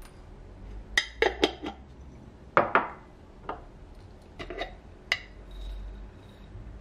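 Dishes clinking together. A quick run of four light clinks comes about a second in, then a heavier clink with a short ring near the middle, then a few scattered clinks.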